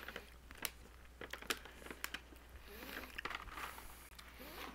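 Plastic snack pouch crinkling as it is handled, with crisp clicks of crunchy freeze-dried mango slices being chewed, the clicks thickest in the first two seconds.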